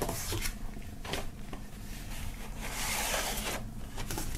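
Paper rustling and sliding as white paper record sleeves holding vinyl LPs are handled and drawn out of the album's cardboard packaging, with a few light knocks of card against card.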